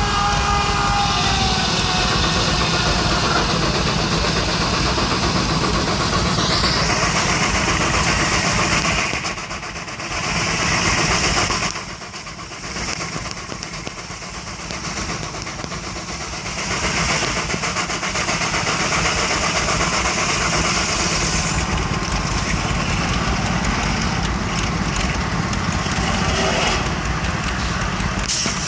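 Steam engine driving a sawmill's circular saw through a log: a steady, dense mechanical clatter of the engine and saw rig, with a whine that falls in pitch over the first few seconds and a brief drop in loudness around the middle.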